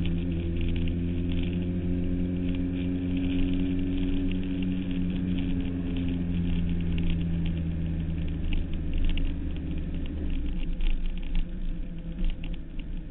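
Suzuki Hayabusa's inline-four engine running steadily at road speed with wind buffeting the microphone; about ten seconds in the engine note drops away as the bike slows.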